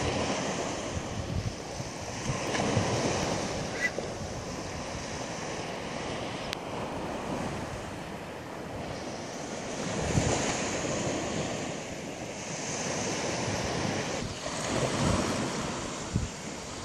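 Sea waves washing in on a rocky shore, swelling and easing every few seconds, with wind buffeting the microphone.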